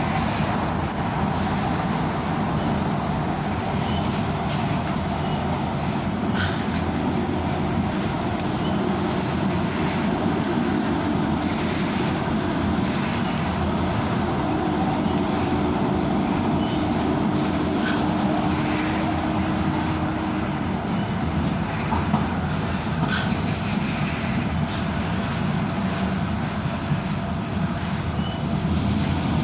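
Tyne and Wear Metro train running at speed, heard from inside the carriage: a steady rumble of wheels on rail, with a faint steady whine through the middle stretch and a few light clicks.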